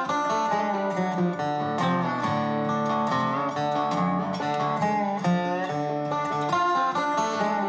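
Background music with plucked and strummed acoustic guitar.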